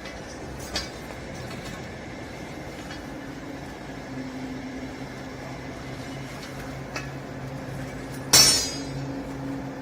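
Vertical lifting chamber baler running, a steady machine hum setting in about three seconds in, with a couple of light clicks and one loud metallic clank near the end.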